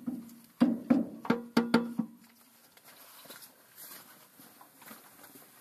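A quick run of about six hard knocks on metal in the first two seconds, each leaving a short ringing hum, as metal parts of the tractor's transmission are struck. After that only faint light tapping.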